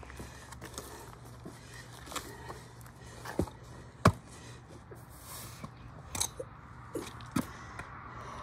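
Rolled canvas fire hoses being handled and pressed tight on asphalt by gloved hands: scattered soft knocks, taps and scrapes, with one sharper knock about four seconds in.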